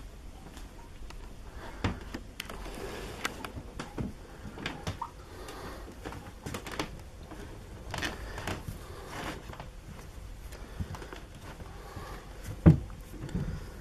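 Scattered light knocks and scuffs as a cat pushes and rubs against a plastic storage bin, with one sharper knock near the end.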